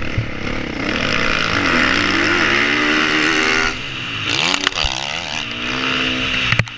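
Husqvarna FC450 four-stroke single-cylinder dirt bike engine revving hard under acceleration, the pitch climbing, then the throttle rolled off just before four seconds in and opened up again, with a sharp click near the end. Wind and track noise on the bike-mounted camera.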